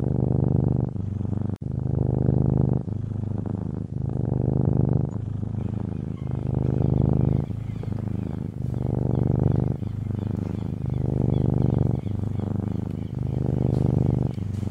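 Domestic cat purring close up: a low, steady rumble that swells and dips in an even rhythm, about once a second, as the cat breathes in and out.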